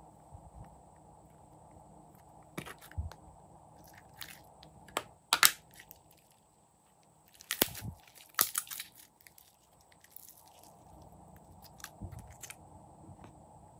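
Hands squeezing and stretching glossy blue slime, giving sticky pops and crackles at irregular intervals, the loudest about five and a half seconds in.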